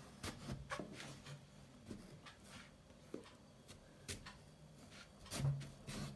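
Kitchen knife cutting into a firm-skinned gourd on a plastic cutting board: scattered small clicks and crunches as the blade goes through the rind, the loudest near the end.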